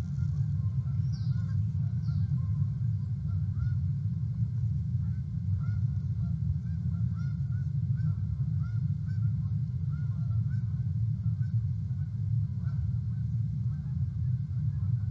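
Outdoor nest-cam audio: a steady low rumble throughout, with many faint honking calls of distant birds scattered through it.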